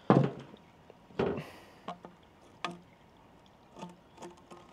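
A series of irregular clicks and knocks, the loudest right at the start and another with a brief rattle about a second in: a steel nut on fishing line clicking against the inside of a clear plastic pipe as a magnet held outside drags it along.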